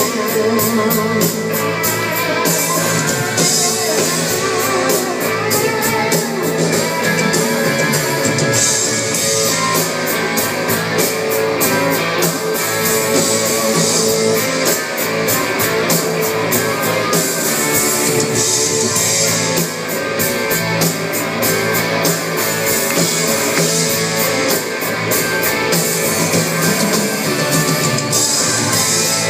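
Rock band playing live: electric guitar over a drum kit with a steady run of cymbal strokes, with no vocals.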